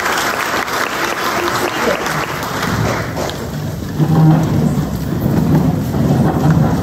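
Audience applauding, the clapping dying down about three seconds in, then the rustle and low voices of people settling into their seats.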